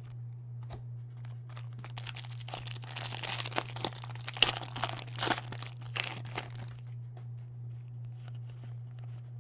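Foil basketball card pack being torn open and crinkled by hand: a few seconds of crackly tearing and crumpling starting about two seconds in. A steady low hum runs underneath.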